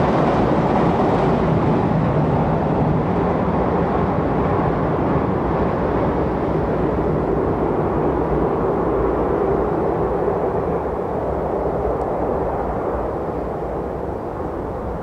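Railway train running, a loud steady rumble that slowly fades toward the end.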